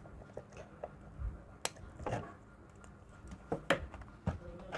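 Side cutters snipping off the excess leads of a freshly soldered resistor on an LED bulb circuit board: two sharp clicks about two seconds apart, with a few lighter ticks and handling knocks around them.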